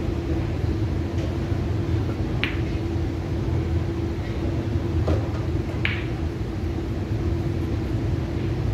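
Sharp clicks of pool balls: one about two and a half seconds in as the cue plays the shot, and two more around five and six seconds in. They sit over the steady hum and rumble of the room's ventilation.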